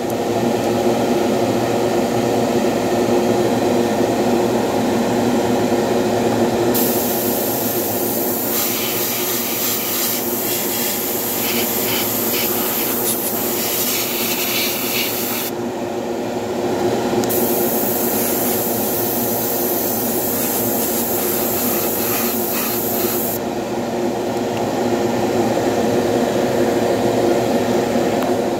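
Airbrush hissing as it sprays paint onto a brass model locomotive, in two long passes (from about a quarter of the way in to just past halfway, then again after a short pause), over a steady machine hum that runs throughout.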